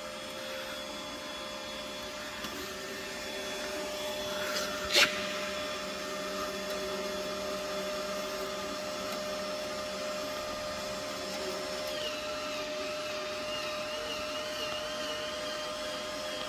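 Hanshin HST-200MIG gasless MIG welder whirring steadily, its wire-feed motor running as the wire-inch button is pressed, with a sharp click about five seconds in. The wire stops coming out of the torch, which is put down to a bent wire end catching in the nozzle.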